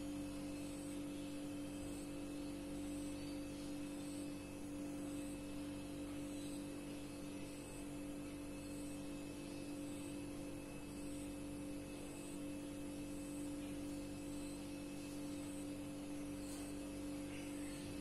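A steady, faint hum with unchanging pitch, joined by faint high pips repeating evenly about once a second; no hornbill calls.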